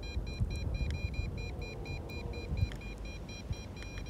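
Drone radio transmitter beeping a rapid, unbroken run of short high beeps, typical of a range or signal warning with the drone at the edge of its range, over a low rumble of wind on the microphone.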